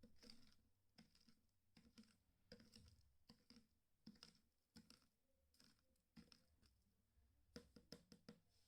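Faint, irregular light clicks and taps, with a quick run of several clicks near the end.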